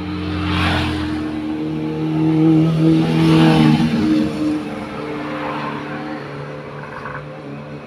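A motor vehicle's engine running steadily, its pitch dropping slightly about a second and a half in, with the rush of vehicles passing several times.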